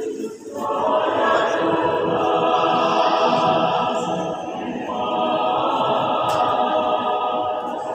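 A choir singing long held chords in several parts. A new phrase begins about half a second in, and the chord changes about five seconds in.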